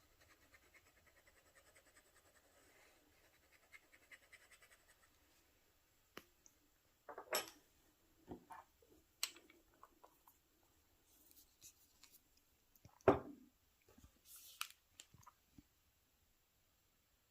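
Pen nib scratching faintly across paper in short strokes, followed by a scattering of light clicks and knocks, the loudest about 13 seconds in.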